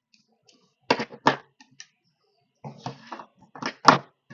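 Small hard parts and tools knocked and set down on a workbench: two sharp knocks about a second in, then a short rattling clatter ending in two more loud knocks near the end.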